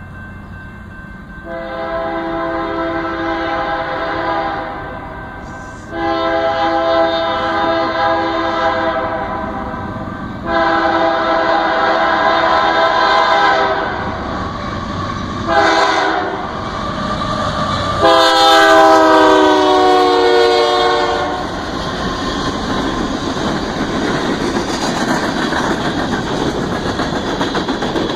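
BNSF diesel locomotive's multi-note air horn sounding a string of long blasts, then a short one and a final long blast that drops in pitch as the locomotive passes. Then the coal train's cars rumble past, their wheels clicking over the rail joints.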